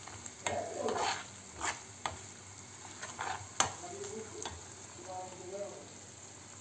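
A metal spoon stirs and scrapes through a garlic, oil and pepper-paste sauce in a nonstick frying pan, with sharp taps against the pan, the loudest about three and a half seconds in. Under the taps the sauce sizzles steadily as it fries.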